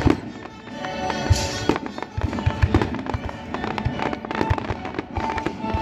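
Fireworks going off in quick succession, many sharp bangs several a second from about a second in, over a live orchestra playing held notes.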